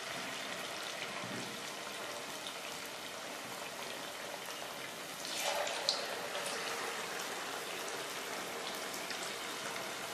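Vegetable spring rolls deep-frying in hot oil in a kadhai: a steady crackling sizzle, briefly louder about five seconds in as a second roll goes into the oil.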